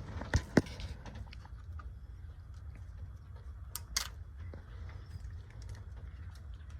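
Scattered small clicks and taps over a low steady rumble, with two sharper clicks in the first second and another about four seconds in.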